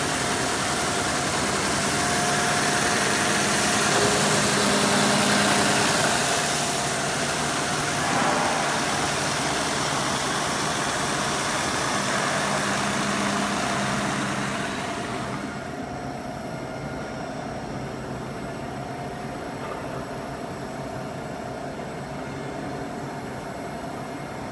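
Wood brushing sanding machine running, its spinning abrasive brush roller scrubbing the surface of a wood board with a loud, steady rushing noise over the machine's hum. About two-thirds of the way through the scrubbing falls away, leaving the machine running more quietly.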